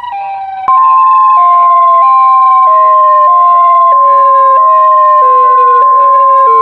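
A siren sounds in short rising wails that step gradually lower in pitch. About a second in it is joined by a loud, steady, single-pitch emergency alert attention tone, which holds unbroken and is the loudest sound.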